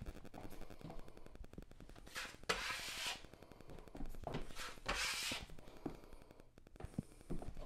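Metal drywall taping knife scraping joint compound across wallboard over screw heads: two rasping strokes of the blade, each under a second, with a few light taps in between.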